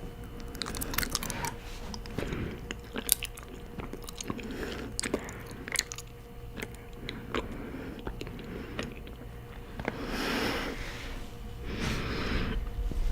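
Close-miked chewing and biting of honeycomb: many sharp, sticky mouth clicks and crunches. There are two longer hissing stretches near the end.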